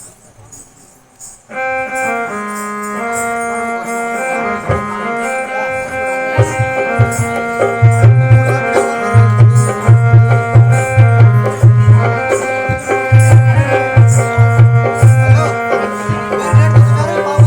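Instrumental music that starts about a second and a half in with a sustained melody; a few seconds later a steady, heavy drum beat joins it.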